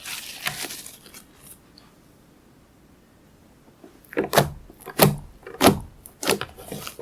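Slime being squeezed and pressed by hand: soft crackling at first, then about five sharp, crackly squelching pops about half a second apart near the end.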